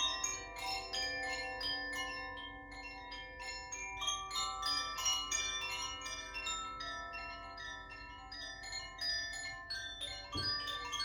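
Tuned metal healing chimes of the Makino style, struck in a quick run of about three or four strikes a second, their bright tones ringing on and overlapping. A soft low thump comes near the end.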